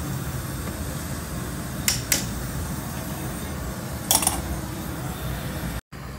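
A few light clicks or taps over a steady low background hum: two close together about two seconds in, and a short cluster about four seconds in. The sound drops out for a moment near the end.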